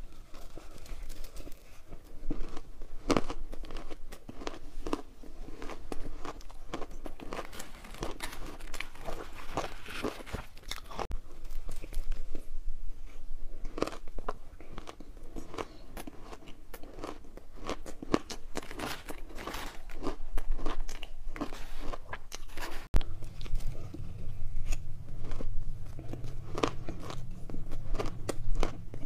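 Close-miked crunching bites and chewing of matcha-powdered ice, a dense run of crisp crunches.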